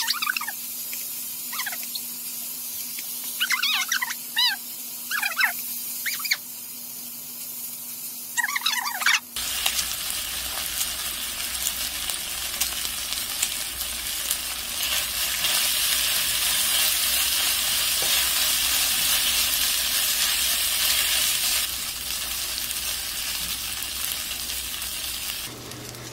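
Fried rice with vegetables and pork sizzling in a frying pan as it is stirred with a spatula. The sizzling grows fuller and louder about nine seconds in.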